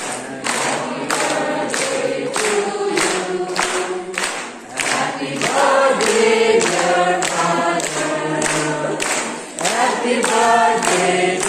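A large group of people singing together, with steady hand-clapping to the beat at about three claps a second.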